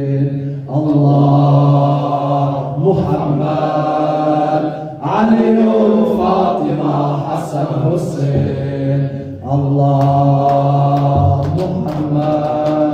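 A man chanting a latmiya, a Shia mourning lament, into a microphone: long held sung phrases, with short breaks between lines about a second in, near the middle and about two-thirds of the way through.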